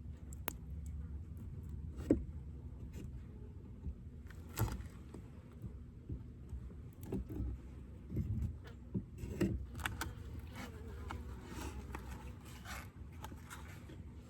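Scattered clicks, knocks and short scraping sounds from handling wooden beehive frames, over a steady low hum.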